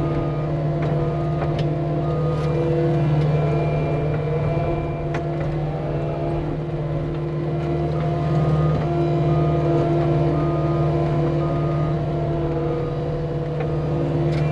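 Cat 259D skid steer's diesel engine running steadily at working revs, heard from the cab. A short high beep repeats about once a second in stretches, in the manner of the machine's backup alarm.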